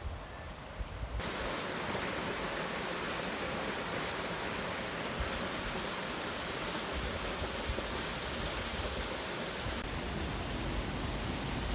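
A steady, even hiss that starts abruptly about a second in, like outdoor wind or rushing water on a phone microphone, over a low rumble of wind on the microphone.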